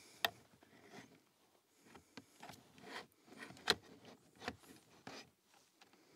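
Hands handling a plastic wiring connector at a steering column cowling: scattered sharp plastic clicks, the loudest about a second before the middle and another right at the start, among soft rubbing and rustling of a padded jacket sleeve.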